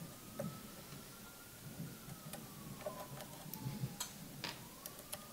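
Faint metallic ticking and light clicks of an Allen key being spun by hand to back screws out of an espresso machine's piston assembly. A couple of sharper clicks come about four seconds in, as a screw is set down on the bench.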